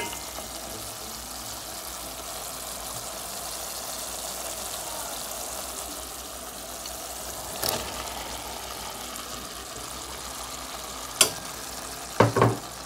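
Dried fish and spice mixture sizzling steadily in an aluminium pot on a gas stove, with a spatula stirring it. There is a knock about eight seconds in, then sharp clatters near the end as raw pumpkin pieces go into the pot.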